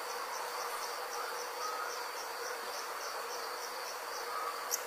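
Insect chirping: soft, evenly spaced high chirps about four a second over a faint steady hum.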